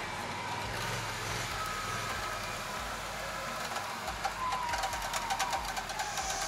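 Quad ATV engine running, its whining pitch wavering and sliding, with a run of rapid sharp clicks and rattles in the second half.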